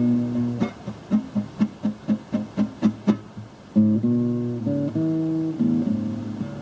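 Acoustic guitar played without singing. A held chord gives way to a run of about ten quick picked notes, roughly four a second. About four seconds in, fuller strummed chords start ringing and change.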